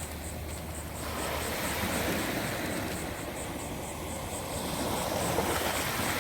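Ocean surf breaking on the shore: a steady rushing wash that swells and eases slowly, loudest near the end.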